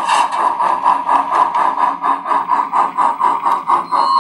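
SoundTraxx WOWSound decoder's Challenger steam exhaust chuffs, played through the model locomotive's speaker as it runs at speed, with a quick, even beat of chuffs.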